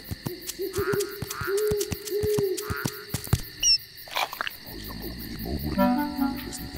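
Cartoon sound effects and score: quick percussive taps under a low hooting phrase, a short high squeak about halfway, then a few stepped musical notes near the end.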